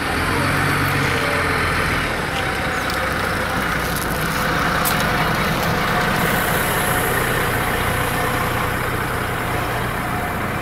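Articulated city buses and a police van driving slowly past one after another in a convoy, their engines running with a steady low hum over tyre and road noise.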